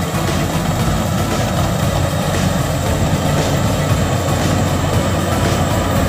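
Bimo Extreme combine harvester running steadily while it cuts and threshes rice, a loud continuous engine and machinery drone.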